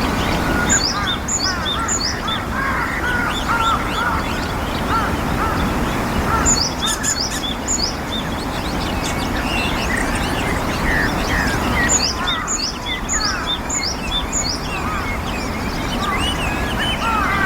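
Japanese tit singing in three short bursts of quick, repeated high notes, with a busy chatter of softer chirps from other birds throughout and a steady background hiss.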